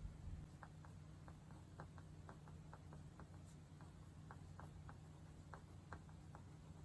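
Faint light clicks, about three a second at irregular spacing, over near-silent room tone.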